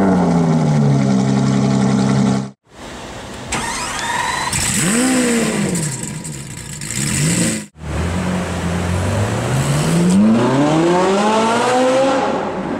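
Supercar engines revving in a run of short clips cut together: a rev falling back, a cut, two quick blips of the throttle, another cut, then a long climb in revs near the end.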